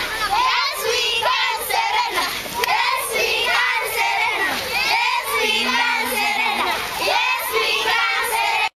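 A crowd of schoolchildren shouting and singing together, many high voices overlapping without a break. It cuts off abruptly at the very end.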